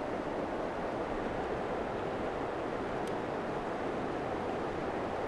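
Steady rush of the Spokane River running fast over rapids.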